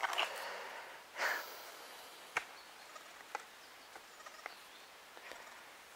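A person breathing sharply or sniffing twice, close to the microphone, the second about a second in. Faint scattered clicks follow over a low outdoor hiss.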